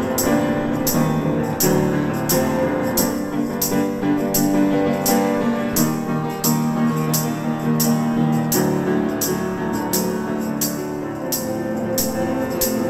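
Instrumental break of a worship song: piano chords with a tambourine struck on a steady beat, a little over two strokes a second.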